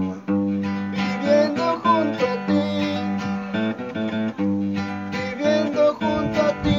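Acoustic guitar strummed, chords struck again and again over bass notes, with short runs of single notes in between.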